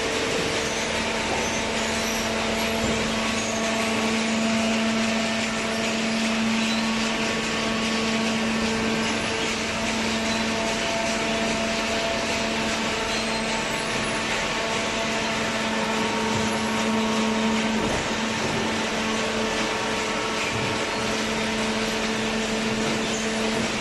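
Hydraulic baler's electric motor and hydraulic pump running steadily: a continuous mechanical hum with a whine, the hum strengthening about half a second in.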